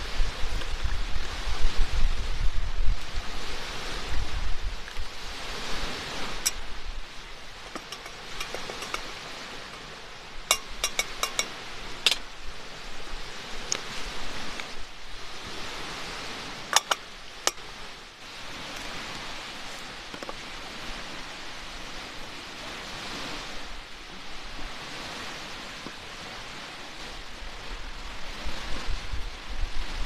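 Steady outdoor hiss of wind and surf, rising and falling in slow swells. Coffee pours into a metal mug at the start, a few sharp clicks of cups and tableware come around ten to twelve seconds in, and a wooden lid clicks onto the mug about seventeen seconds in.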